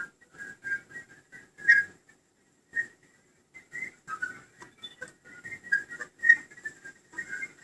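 Irregular short, high whistling chirps and squeaks, several a second, with a lull from about two to three and a half seconds in.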